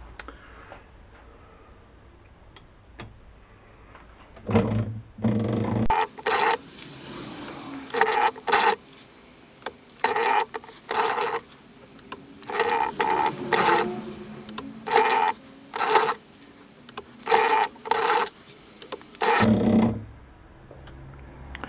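Lathe tool bit scraping graduation lines into a metal cross-feed dial blank, each line cut with a brief rasping scrape as the tool is drawn across the work. The strokes start about four seconds in and repeat, often in pairs, for some fifteen seconds.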